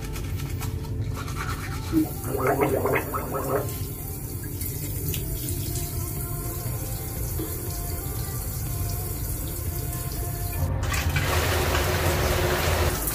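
Toothbrush scrubbing teeth in a rapid back-and-forth. Near the end a handheld shower head comes on, and its water spray hisses steadily.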